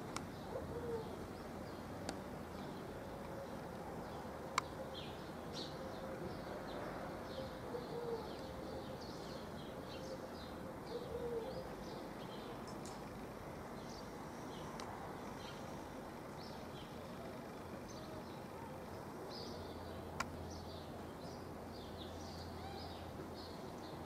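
Birds chirping: many short, high chirps throughout, with a faint low steady tone in the first half and a sharp click about four and a half seconds in and another near the end.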